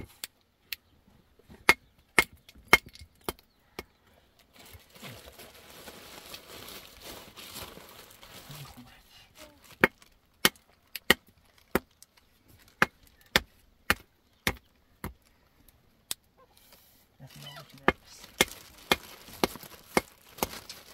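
Hammer striking a stone block, sharp cracks at irregular spacing, about one or two a second, as the stone is chipped into shape for a dry-stone wall.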